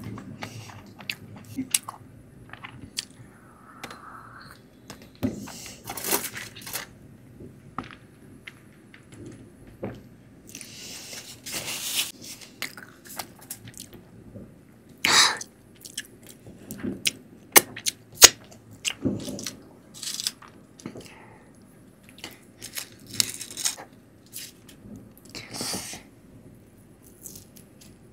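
Close-up eating of Indian sweets: chewing and wet mouth sounds, with many scattered sharp clicks and a few short louder smacks.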